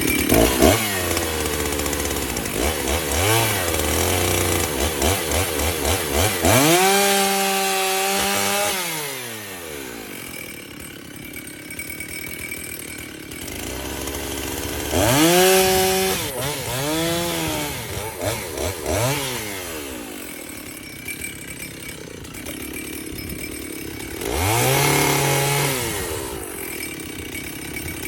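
Two-stroke chainsaw running a freshly sharpened chain. It is revved up to full throttle three times, held for a second or two each time, and dropped back to idle, with short throttle blips in between.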